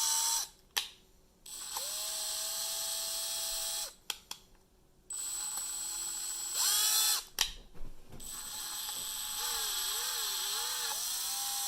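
Milwaukee M12 Gen3 cordless hammer drill/driver running in drill mode in short runs, its motor whining steadily, stopping between runs with a few sharp clicks. The pitch steps up during the third run and wavers up and down in the last as the trigger speed is varied.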